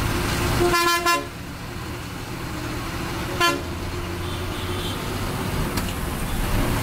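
Ashok Leyland bus running, its engine and road noise heard from inside. A horn sounds in a couple of quick toots about a second in, then once more briefly about halfway through.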